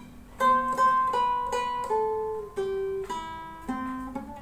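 Acoustic guitar playing a melody line of single picked notes, about two or three a second, each note ringing on into the next.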